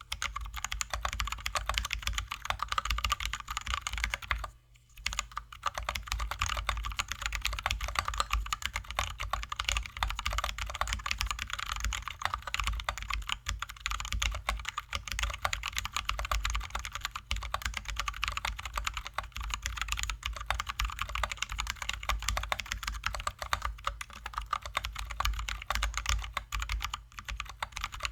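Fast, continuous typing on a Drop ALT high-profile mechanical keyboard with lubed, filmed Zealios V2 67g tactile switches and XDA-profile keycaps. There is a brief pause about four and a half seconds in.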